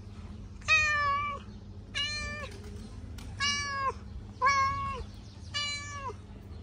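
Young kitten meowing five times in a row, about once a second, each a short high call.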